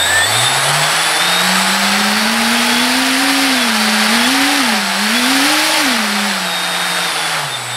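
Skywalker AX2814 brushless outrunner motor, driven by a 40A ESC, spinning its propeller on a test stand: a whine over a rushing of air from the prop. The pitch climbs as the throttle is opened past half, wavers up and down twice in the middle, then drops back near the end.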